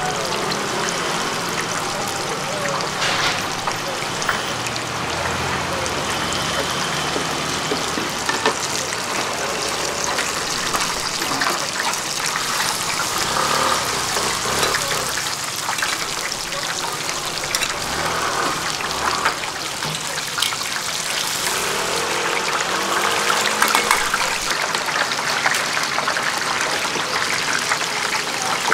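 Batter fritters deep-frying in a wok of hot oil, bubbling and sizzling steadily.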